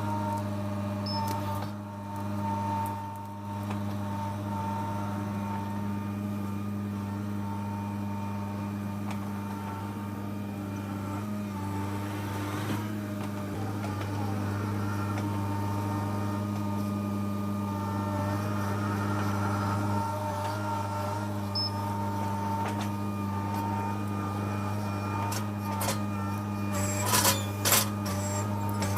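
An engine running steadily at a constant speed: a low, even hum with overtones. A few sharp knocks come near the end.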